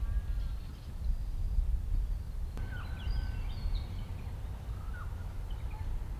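Low, gusty rumble of wind on the microphone, with birds chirping and whistling short notes over it from about two and a half seconds in.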